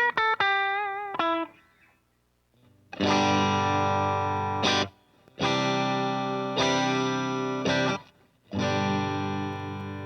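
Ibanez S670QM electric guitar played on a clean Deluxe Reverb amp tone: a quick run of single notes ending on a note held with vibrato. After a short pause come three strummed chords, each left ringing, and the last one fades out.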